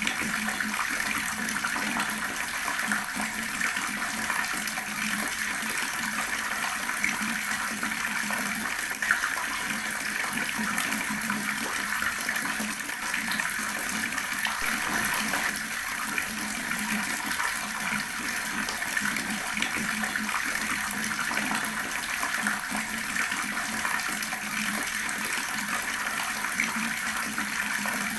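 Water tap running steadily, a continuous stream of water splashing.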